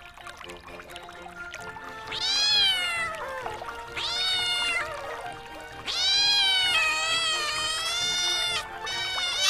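Domestic cat meowing: two short meows about two and four seconds in, then one long drawn-out meow, with another starting near the end, over quiet background music.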